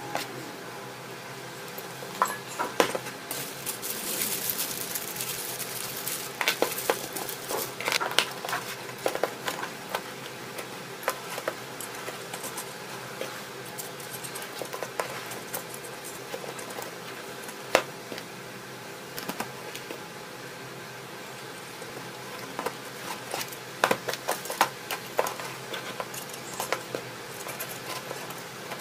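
Hard plastic parts clicking and clattering on a tabletop as small black plastic motor units are handled and fitted onto a plastic chassis plate: irregular sharp clicks, busiest in a few flurries, over a faint steady hum.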